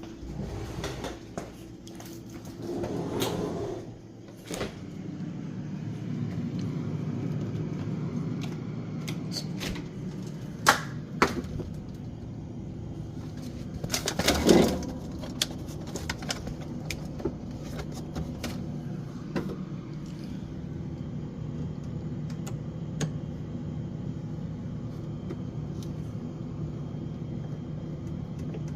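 Refrigerator compressor running with a steady low hum while the condenser fan motor is not running, which is judged to need replacing. Scattered knocks and clatter of handling are heard over it, the loudest about halfway through.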